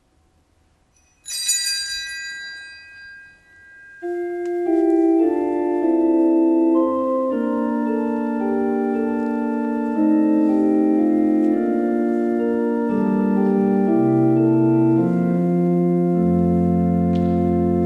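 Church organ playing the introduction to a hymn: slow, sustained chords with moving inner parts, and deep pedal bass notes coming in near the end. Just before the organ starts, a bright ringing tone sounds once and dies away.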